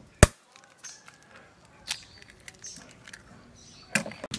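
A single sharp crack as an egg is broken on the rim of a glass bowl, followed by a few faint soft clicks and taps.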